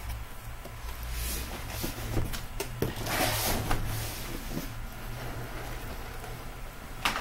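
Cardboard shipping case of Panini Prizm hobby boxes being turned over and slid up off the boxes inside: cardboard rubbing and scraping with scattered small knocks, and one sharp knock near the end.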